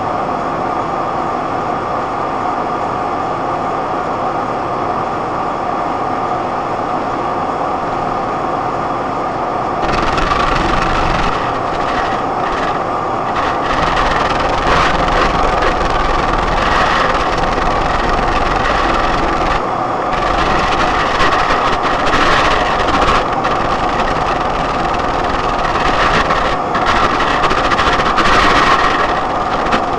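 Vehicle driving noise: a steady rumble and hum that turns louder and rougher about ten seconds in, with irregular rattling and crackling.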